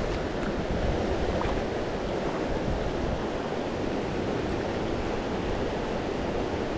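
Mountain trout creek rushing over rocks and through riffles: a steady, unbroken rush of water.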